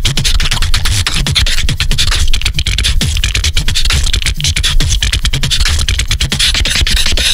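Solo beatboxing: a fast, dense beat of sharp clicks and hissing strokes over a steady deep bass.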